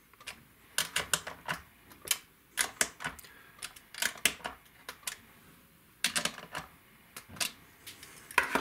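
Sharp metallic clicks and taps in two clusters with a short pause between, as a small wrench tightens the bushing nuts of new Guyker locking tuners on a Telecaster headstock.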